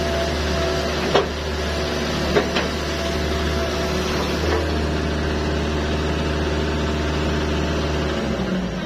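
Hitachi ZX110MF excavator's diesel engine running steadily, with a few sharp clicks in the first three seconds. The engine note changes and drops away near the end.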